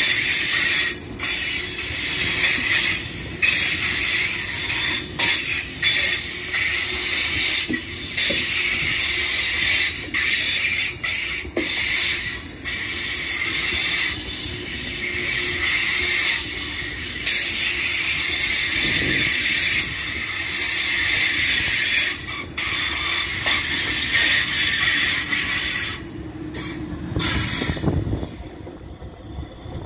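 Double-deck Ouigo TGV Duplex high-speed train rolling slowly past, with a steady high hiss over a low rumble of wheels on the rails. Near the end the hiss drops away, leaving a quieter low rumble.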